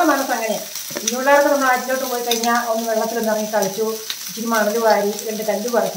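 A woman talking, with fish frying in oil underneath: a steady hiss with scattered crackles.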